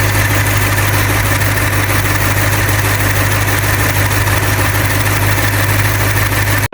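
Toyota Celsior (Lexus LS430) V8 engine idling steadily with a constant low hum. It cuts off suddenly at the end.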